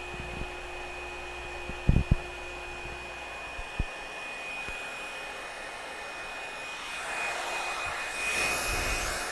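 Revlon One Step hot-air brush dryer running steadily: a hiss of blown air with a thin high motor whine. A few sharp knocks from handling come about two seconds in and again near four seconds, and the air grows louder and rougher near the end.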